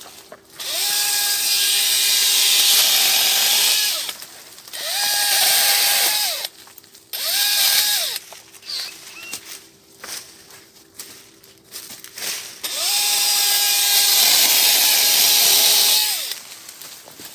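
Handheld electric saw cutting plum-tree branches in four bursts. In each the motor spins up to a steady whine over the hiss of the blade in the wood, then winds down. The first and last cuts last three to four seconds, the middle two are shorter.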